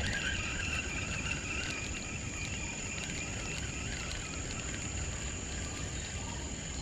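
Steady high-pitched insect buzzing, with a low, even rumble underneath. A rougher whirring joins in at the start and fades out over the first few seconds.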